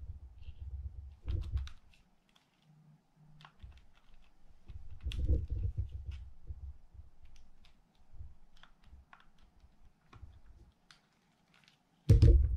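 Small metallic clicks and scrapes of a screwdriver turning out the side-plate screws of a Penn International II 50T fishing reel, with low rumbles from the reel being handled. A sudden louder knock comes near the end, as the screwdriver is set down.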